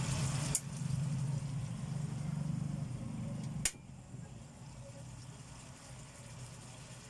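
Gas stove burner running with a steady low rumble under a simmering pan. There is a light click about half a second in, then a sharp click of the control knob a little under four seconds in, after which the rumble cuts off: the burner being turned off.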